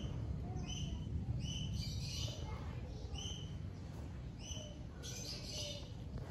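A bird chirping, short calls repeated roughly once a second, over a low steady rumble.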